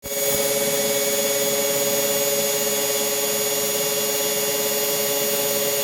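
Brushless motor/generator rig running at steady speed under load, giving a constant electric whine with a hiss over it.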